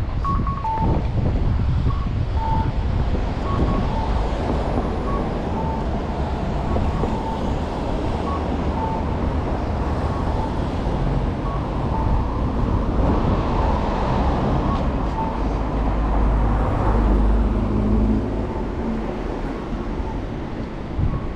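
Steady rumble of vehicles with wind on the microphone, swelling between about 13 and 18 seconds in. Over it, a quiet two-note electronic chime repeats about once a second.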